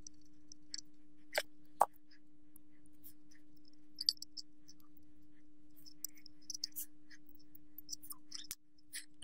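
Light clicks and taps of hand work on a ceiling fan motor's wiring: a screwdriver in the plastic terminal block, wires and a plastic cover being handled, with two sharper clicks in the first two seconds. A steady low hum runs underneath.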